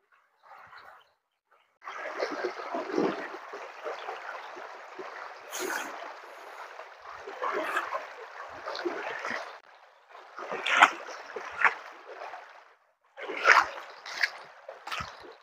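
Water of a shallow, stony river rushing and splashing as a child wades through it ankle-deep, with sharper splashes from her steps. The sound cuts out briefly twice.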